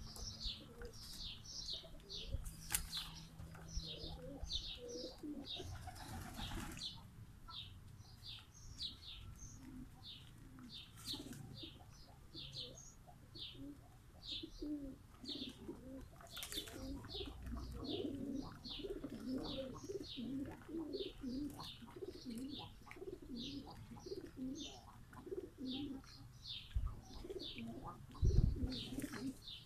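Domestic pigeons cooing, with wing flaps and splashes as they bathe in basins of water. A small bird chirps rapidly and steadily in the background, and there is a low thump near the end.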